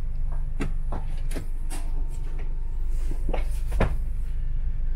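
Steady low rumble inside a sleeper train compartment, with irregular knocks and clicks from the compartment fittings, the loudest a little under four seconds in.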